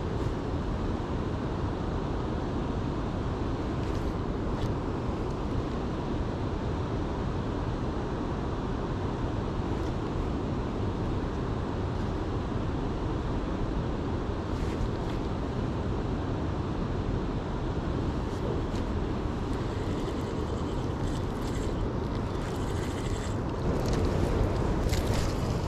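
Steady low outdoor rumble with a few scattered faint clicks from the spinning reel and rod being worked. Near the end it grows louder, with a quick run of clicks and rustling as both hands go to the reel.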